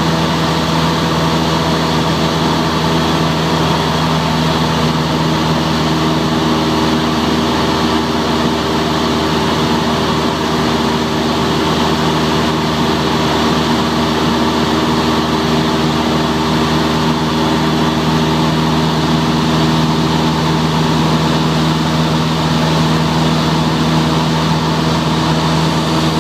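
Cessna 172's piston engine and propeller droning at a steady cruise, heard from inside the cabin.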